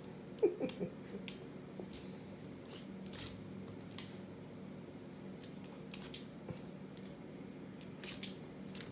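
Australian Terrier puppy's claws clicking and tapping on a wooden floor in scattered short ticks as it darts about, with a louder brief scuffle about half a second in.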